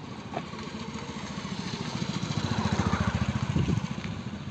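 Motorcycle engine passing close by, its exhaust pulsing fast and low, growing louder to a peak about three seconds in and then fading.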